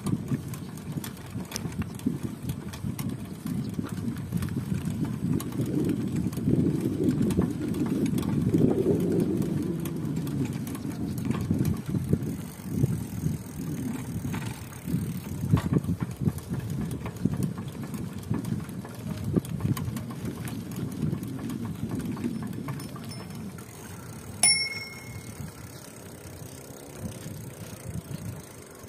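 Bicycle being ridden: a continuous low, uneven rumble of tyres and rattling parts, with many small clicks. A single sharp metallic ting comes about three-quarters of the way through.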